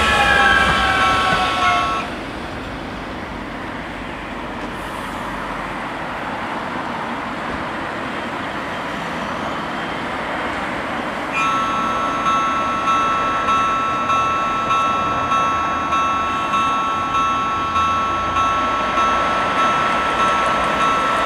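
Level-crossing warning bells ringing with a steady pulse while a Metrovalencia electric train pulls away with a falling motor whine. Both stop about two seconds in, leaving a steady rumble of traffic and the railway. About eleven seconds in, the crossing bells start ringing again, warning of the next train.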